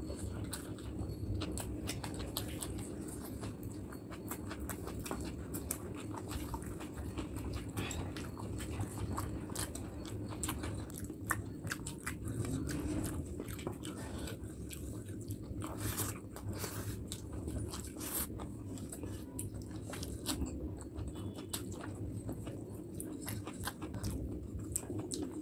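Close-miked chewing and mouth sounds of a person eating rice and curry by hand, a steady run of small clicks and smacks.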